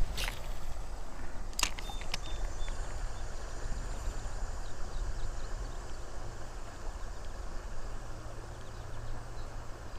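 Steady rushing of a high, fast-flowing trout stream, with two sharp clicks in the first two seconds.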